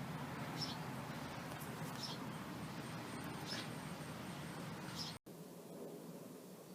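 Outdoor background with short, high chirps from a small animal repeating about every second and a half over a steady hiss; the sound cuts out abruptly about five seconds in and is quieter afterwards.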